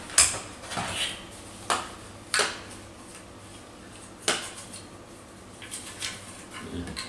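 Small plastic accessories and cardboard packaging being handled: about five sharp clicks and rattles, the first the loudest, then lighter ticking and rustling near the end.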